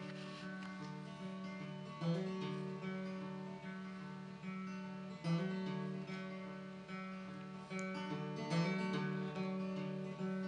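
Acoustic guitar playing a song's instrumental intro: picked and strummed chords that ring on, with a stronger strum at the start of each phrase, roughly every three seconds.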